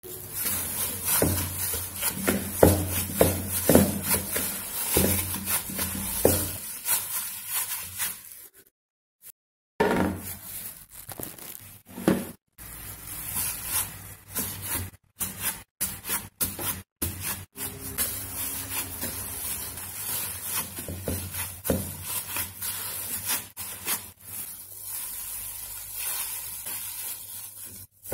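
Gloved hands punching down and kneading risen yeast dough in a plastic bowl: crinkling of the plastic gloves, soft squishing and irregular thumps and knocks against the bowl. The sound drops out abruptly several times.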